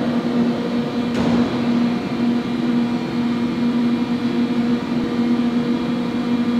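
Steady mechanical hum, one low tone with fainter higher tones above it, with a brief whoosh about a second in.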